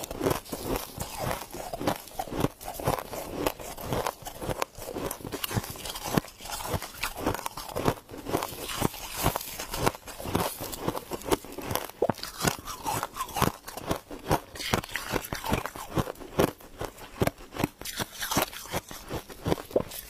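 Packed freezer frost crunching as it is chewed, broken apart in gloved hands and bitten into: a dense, irregular run of crisp crackles.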